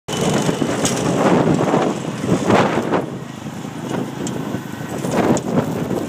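Cub Cadet garden tractor engine running as the tractor drives off through deep snow, loudest at first and dropping after about three seconds as it moves away, with a few sharp knocks mixed in.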